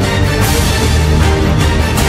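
Background music with a sustained bass line and a driving drum beat.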